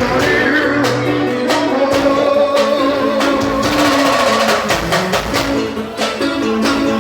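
Music with melodic pitched notes, likely a plucked guitar, over regular percussion strikes.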